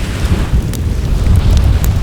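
Wood fire crackling with a few sharp pops, over a heavy low rumble of wind buffeting the microphone.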